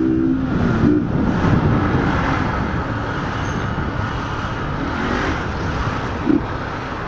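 Carbureted single-cylinder engine of a 2008 Honda CG Titan motorcycle running through an open, filterless exhaust as it is ridden, amid surrounding road traffic noise.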